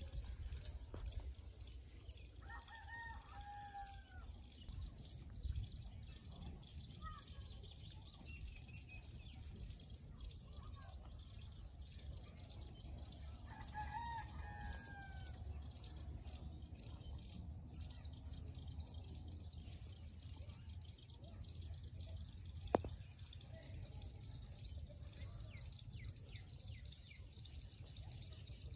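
A rooster crowing twice, about eleven seconds apart, over a steady low rumble of wind on the microphone and faint high chirping. A single sharp click sounds about two-thirds of the way through.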